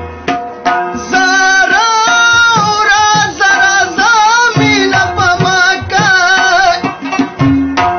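Pashto tappay folk song: a voice sings a wavering, ornamented melody over tabla drumming. The tabla plays alone for about the first second and again near the end.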